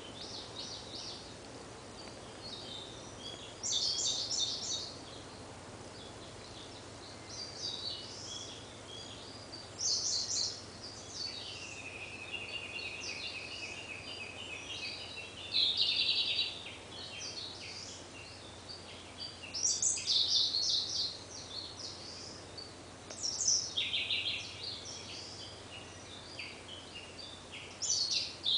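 Siberian blue robin singing: loud, rapid trilled phrases repeated every few seconds, with softer notes in between.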